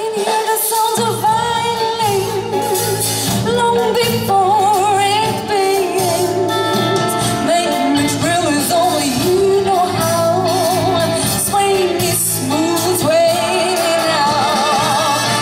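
Light orchestra playing live, with saxophones, trumpets, trombones, bass guitar and drums accompanying a female vocalist who sings with a wavering vibrato.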